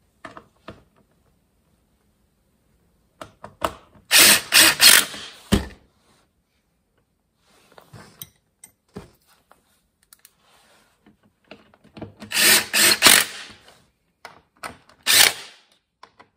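DeWalt cordless impact driver running screws in to fasten a backpack blower's fuel tank and bracket to its frame. Three runs: one about four seconds in lasting over a second, a longer one about twelve seconds in, and a short one near the end, with light clicks of handling between them.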